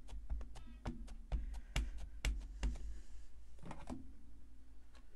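Ink pad dabbed again and again onto a large rubber stamp, a series of sharp clicks about two a second. Just before the end come a couple of louder clacks as the hinged plate of a Stamparatus stamping platform is swung closed.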